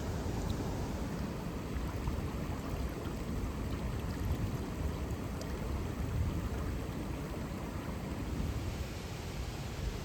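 Small waterfall and river water rushing steadily, with a full low rumble.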